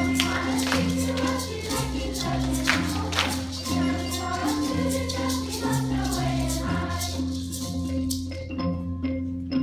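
Children's choir singing with accompaniment of steady bass notes and rattling hand percussion. About eight seconds in the rattling stops and only light, regular ticks continue under the music.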